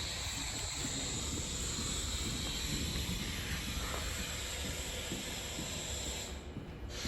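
R68 subway train running: a steady low rumble with a constant hiss over it, which briefly drops away near the end.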